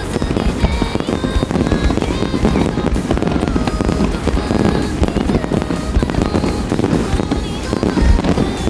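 Fireworks display in a dense barrage: rapid bangs and crackling go on without a break, with music playing underneath.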